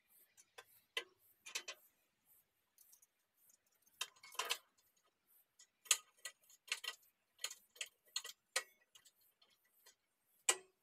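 Light, irregular metallic clicks and taps of hand tools being worked against a steel tractor loader bucket, about a dozen sharp ticks with a louder knock now and then.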